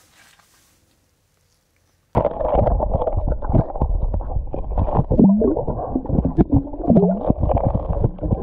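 Underwater camera submerged in an ice-fishing hole, picking up a loud, muffled, low rumble of water against its housing. It comes in suddenly about two seconds in, after a short silence.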